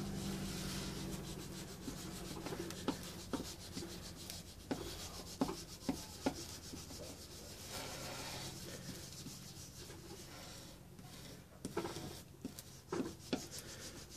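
Hot tool tip rubbing and scraping along the cracked plastic body panel of an Aprilia RX50 scooter as it melts the plastic along the crack, with scattered light taps and a low steady hum underneath.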